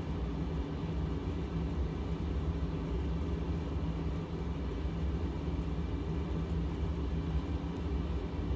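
Steady low hum and rumble of machinery running in the background, unchanging throughout, with no clear clicks or knocks.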